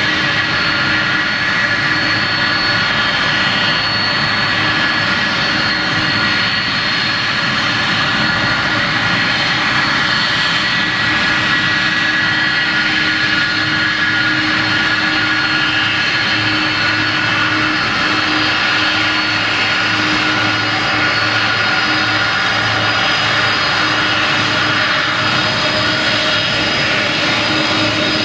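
Boeing 747's four jet engines running at taxi power: a steady whine with a low hum underneath. It holds level as the jet rolls past.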